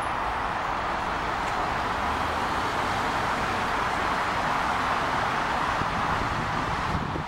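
City street traffic: cars driving past in a steady stream of tyre and engine noise.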